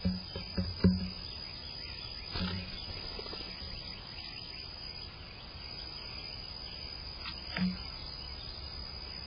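Blue jay pecking at seed on a wooden plank table: a few sharp knocks of its bill on the boards, about four in the first second and single ones about 2.5 s and 7.5 s in, over a steady background noise.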